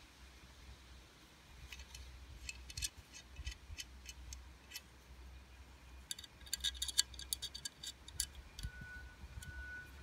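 Small metallic clicks and ticks from a Maxace Sandstorm V2 folding knife's titanium handle and lock being worked by hand. They are scattered at first and bunch into a quick flurry about six to seven seconds in.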